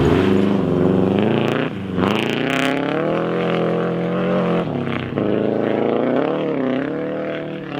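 A rally car's engine at high revs, its pitch dropping sharply at gear changes about two and five seconds in, climbing and holding between them, then rising and falling quickly near the end.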